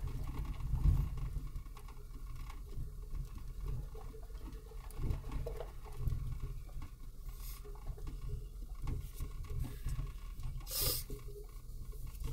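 4x4 heard from inside its cab: a steady low rumble with scattered knocks and rattles, and a short hissing burst about eleven seconds in.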